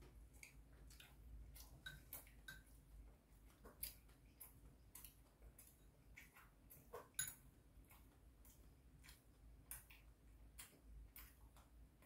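Faint, irregular mouth clicks and smacks of someone chewing food, a few each second, with one sharper click about seven seconds in.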